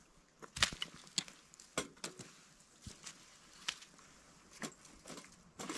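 Small twig fire crackling inside a folded metal windshield used as a stove, giving about a dozen sharp, irregular snaps and clicks.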